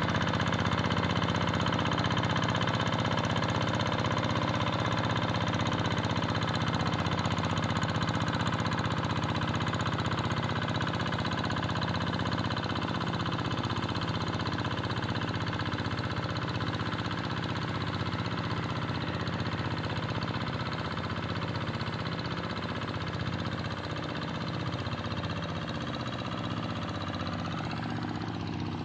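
Tractor engine running steadily as it ploughs a rice paddy, gradually getting quieter.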